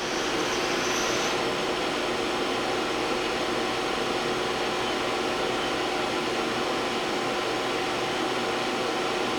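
Trak LPM vertical machining center running under power: a steady, even whirring hum with faint steady tones, a faint high whine dropping away about a second in.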